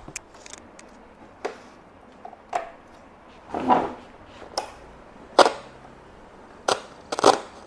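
A National RQ542 radio-cassette recorder being handled. About seven separate clicks and knocks come from its piano-key buttons and plastic case as it is turned and set down on a table.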